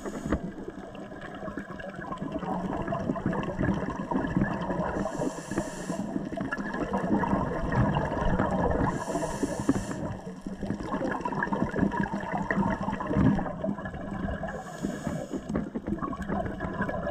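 Scuba diver breathing through a regulator underwater: a hiss of inhaled air about every four to five seconds, with bubbly gurgling from exhaled bubbles between the breaths.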